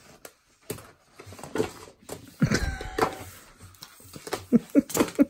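Paper colouring sheets, sticker sheets and cards being swept across a tabletop by hand and pushed off the edge, with scattered light knocks and rustling, and a young child's voice briefly in the middle.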